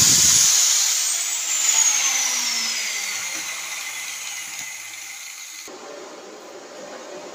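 Angle grinder with a cut-off disc lifting off the metal about half a second in, then winding down: a high whine falling steadily in pitch over about five seconds as the sound fades.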